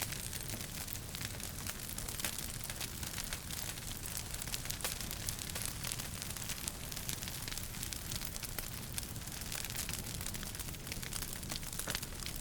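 Wood fire in a fireplace crackling steadily, with many small sharp pops and snaps over a constant hiss.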